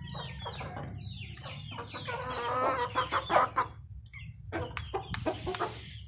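Aseel chickens clucking: a run of short, falling calls, with a longer, louder call about two seconds in.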